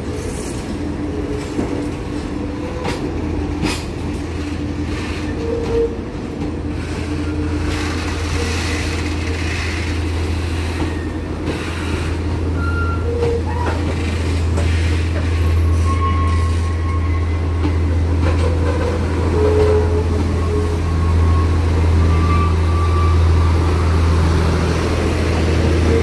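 Diesel-hauled passenger coaches rolling along a station platform: a steady low rumble with a few sharp wheel clicks over rail joints and faint wheel squeal at times. It grows louder through the second half.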